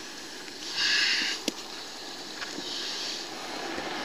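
Two short breathy sniffs, the first about a second in and a softer one near three seconds, with a single sharp click between them and a couple of faint knocks as the magnet and its catch are handled.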